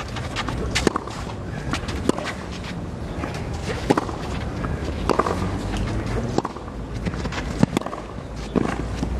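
Tennis rally on a clay court: sharp racket strikes on the ball about every second and a half, with the players' shoes scuffing and sliding on the clay between shots.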